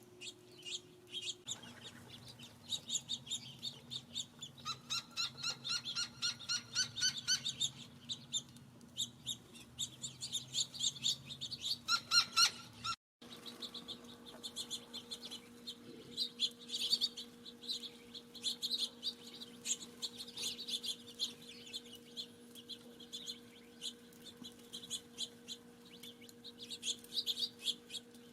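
Small birds chirping continuously, many short high chirps in quick succession, with a faint steady hum underneath. The sound cuts out for a moment about halfway through.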